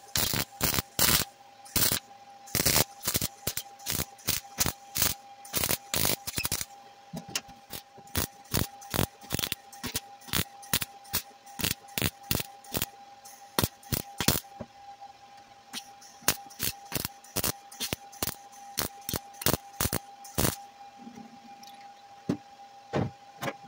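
Wire-feed welder laying short tack welds one after another on sheet-steel floor pan: a crackling burst with each trigger pull, about two or three a second, sparser after about 7 s and stopping about 20 s in apart from a few last tacks. The welds are closing a patch and pinholes in a rusted floor.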